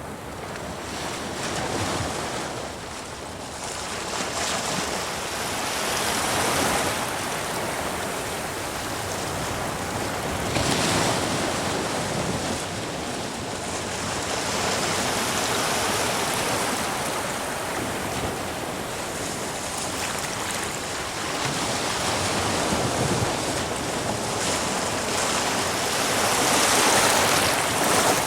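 Ocean waves surging and breaking against rocks, with a steady wash of surf that swells and ebbs every few seconds.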